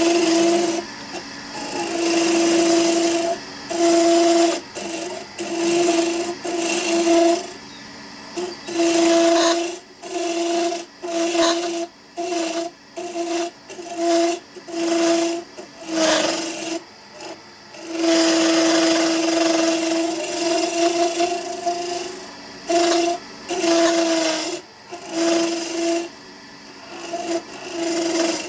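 A Simon Hope mini hollower cutting inside a spinning horse chestnut hollow form on a wood lathe. It makes a scraping hiss with a steady humming tone, in many short passes and one longer pass, and drops back between passes.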